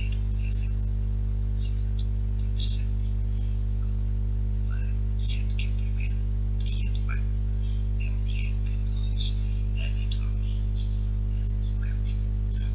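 Steady electrical hum with its evenly spaced overtones, with short high chirps scattered irregularly throughout.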